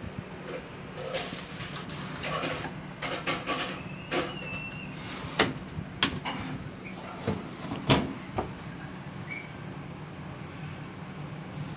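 Top-load washing machine agitating during the rinse: a steady motor hum with irregular clunks and knocks from the wash drum and load, the loudest about five and eight seconds in.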